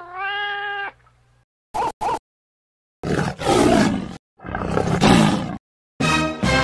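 Animal sound effects in turn: a cat's meow rising then held, two short dog barks, then two long big-cat roars, a tiger's and then a lion's. Music comes in near the end.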